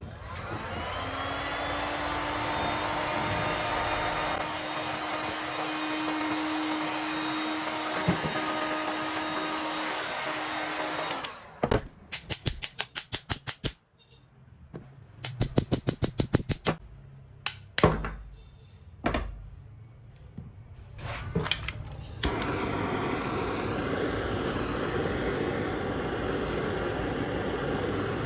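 A power tool spins up and runs steadily for about ten seconds. It is followed by two runs of rapid, evenly spaced strokes of about four a second and a few separate knocks. From about two-thirds of the way through, a steady machine noise runs on.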